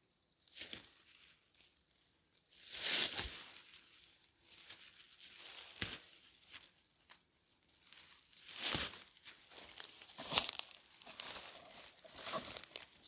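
Leafy herb stems being pulled and torn by hand, with the foliage rustling and crackling in irregular bursts a few seconds apart, the loudest about three seconds in.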